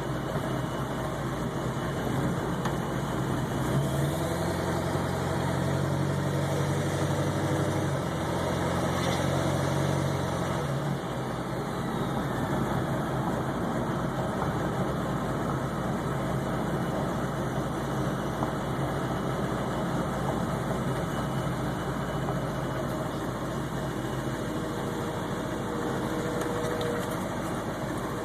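Ford 7.3 Powerstroke turbodiesel V8 idling. From about four seconds in, its note swells louder and heavier for roughly seven seconds, then settles back. The truck idles high and sometimes rough and surges, which the owner suspects is a bad ICP sensor or fuel pressure regulator.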